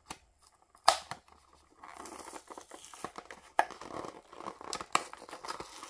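A die-cast car's plastic blister pack and card backing being torn open and crumpled by hand. There is a sharp snap about a second in, then continuous crinkling from about two seconds in, with more sharp plastic snaps.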